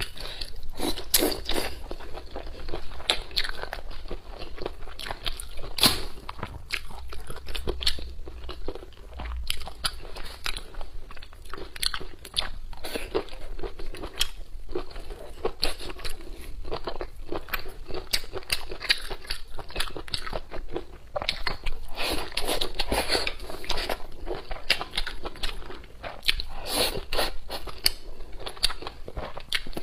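Close-miked mukbang eating sounds: a person biting, chewing and crunching food, with many irregular crunches and wet mouth clicks.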